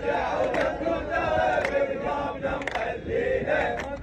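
A crowd of male protesters chanting together, with a sharp beat about once a second.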